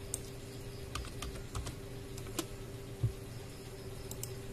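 A few irregular clicks and taps of a computer keyboard and mouse, over a steady low hum.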